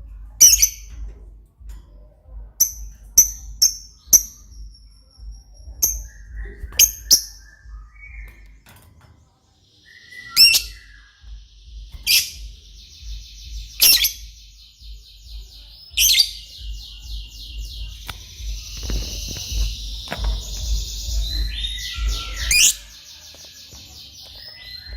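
Lovebird singing. It gives short, sharp, high chirps, then long, fast, chattering trills several seconds long, broken by loud shrill chirps.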